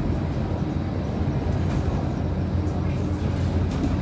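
Inside the cabin of a Scania K230UB Euro 5 single-deck city bus driving at a steady speed: a constant low drone from the rear-mounted diesel engine mixed with tyre and road noise.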